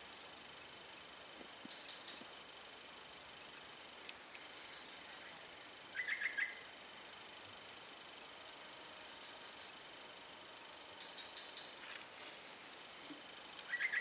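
A steady, high-pitched chorus of insects droning without a break. Brief groups of chirps from another creature come through about two seconds in, about six seconds in, around eleven seconds and again near the end.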